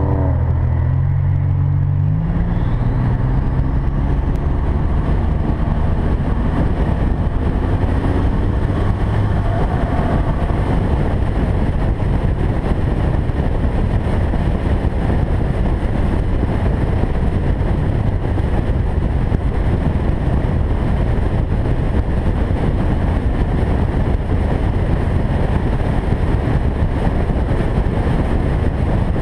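Car engine accelerating, its note rising for about two seconds before a shift in pitch as it changes gear, then settling into steady highway cruising where a loud, even rush of wind and tyre noise covers the engine.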